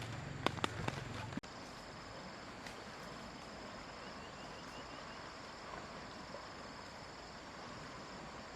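A low steady hum with a few sharp clicks stops abruptly about a second and a half in. After it comes a steady high-pitched chorus of insects chirping outdoors.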